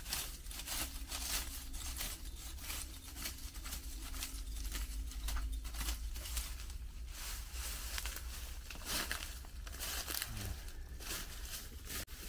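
Continuous rustling and crinkling: many short scratchy noises in quick succession, with a faint steady hum in the first half.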